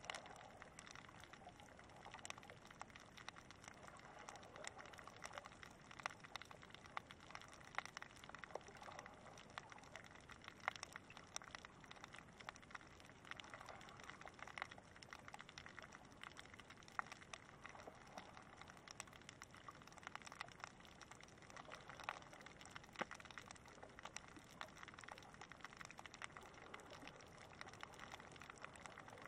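Faint underwater ambience picked up by a submerged camera: an irregular crackle of small, sharp clicks over a soft hiss.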